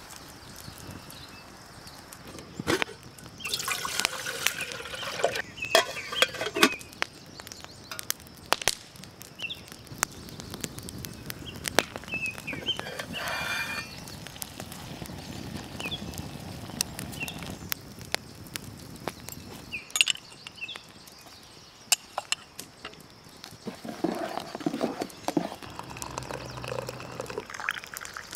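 Wood campfire crackling and popping in scattered sharp snaps. Near the end, hot coffee is poured from a pot into a ceramic mug.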